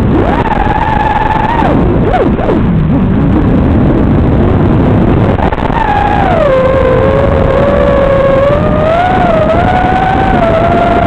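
Quadcopter's brushless motors whining under heavy hiss, as picked up by the onboard FPV camera's microphone. The pitch swoops down and back about two seconds in, drops lower about six seconds in, then wavers up and down as the throttle changes.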